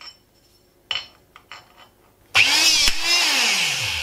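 VEVOR MHP-20 900 W electric hydraulic hole punch working a steel plate. There is a knock of the plate against the die about a second in. About two and a half seconds in, the punch's motor starts with a loud whine that falls steadily in pitch for about a second and a half, with a sharp crack partway through as the punch shears a hole through the steel.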